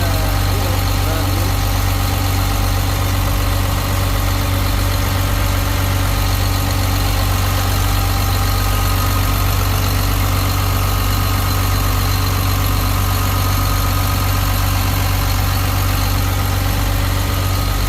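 Caterpillar 950H wheel loader's diesel engine idling steadily, an even low drone with no change in speed.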